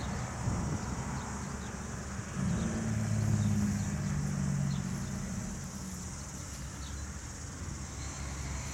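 Distant truck engine drone, swelling about two seconds in and fading away a few seconds later.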